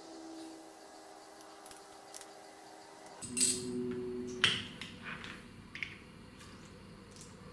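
Faint steady hum, then a few sharp metallic knocks and clinks, the loudest two about three and four and a half seconds in: a machined aluminium tool block and a hex key being handled against a steel machine vise.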